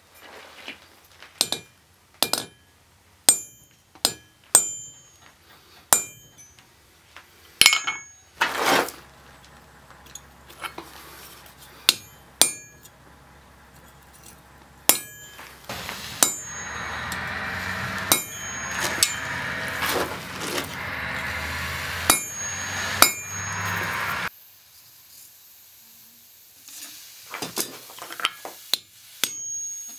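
Hammer blows on a steel punch set against a rebar compass leg on the anvil, punching a hole through it; the blows come at uneven intervals, each with a short metallic ring. From about 8 s to 24 s a steady rushing noise with a low hum runs under the blows.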